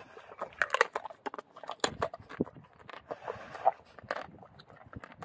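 Bullmastiff chewing a raw chicken foot: irregular sharp crunches and cracks as its jaws break up the small bones.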